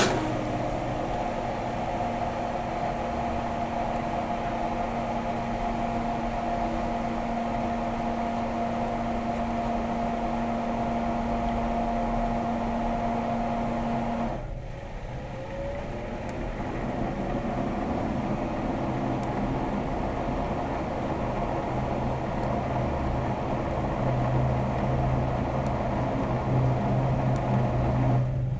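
A machine running steadily with two held tones over a hum. About halfway through the sound drops out briefly and comes back with a pitch that rises, and a deeper hum grows louder near the end.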